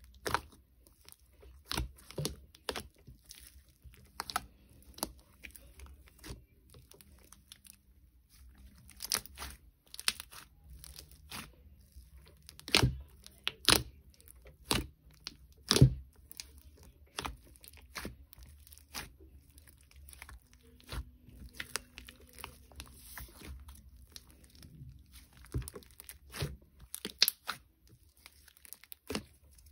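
Homemade Elmer's glue slime being squished and stretched by hand, giving irregular sharp pops and crackles, one to three a second.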